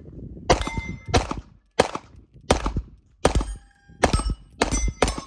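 Handgun fired rapidly at steel plate targets: about eight sharp shots, roughly two-thirds of a second apart, with the struck steel plates ringing after several of them.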